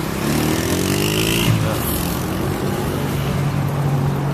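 Road traffic on a busy multi-lane road: a steady rush of passing vehicles with a low engine hum, and one vehicle accelerating with a rising engine note in the first second and a half.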